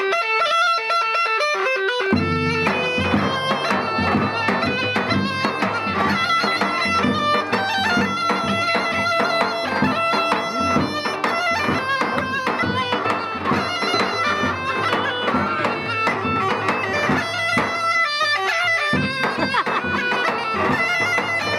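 Balkan bagpipe (gaida) with a white skin bag playing a lively folk melody. About two seconds in, a large double-headed drum struck with a stick joins it, with a low steady tone underneath. The low part drops out briefly near the end.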